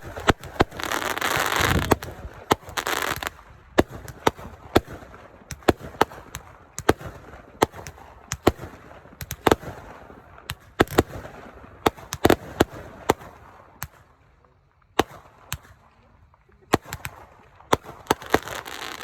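Fireworks going off: an irregular string of sharp bangs, with stretches of hiss about a second in, around three seconds and near the end, and a short lull around fourteen seconds.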